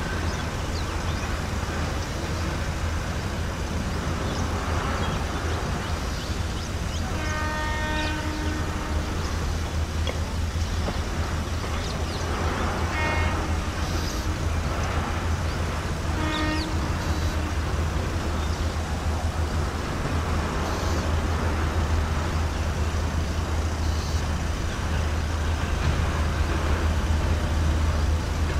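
Distant WAP-4 electric locomotive horn sounding three times as the train approaches: one longer blast about seven seconds in, then two short toots, over a steady low rumble.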